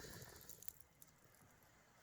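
Campfire crackling faintly, with a few sharp pops in the first second.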